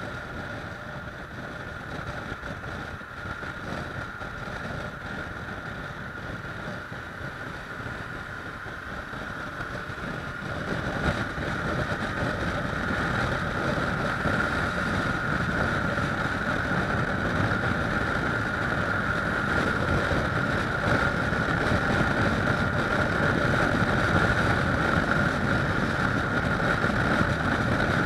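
Kawasaki ER-6f's parallel-twin engine running steadily at road speed, mixed with wind rushing over the action camera's microphone. The sound grows louder about ten seconds in and stays there.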